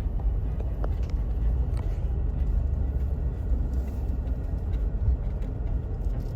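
Steady low rumble of a slow-moving vehicle, heard from inside the cab, with a few faint light knocks.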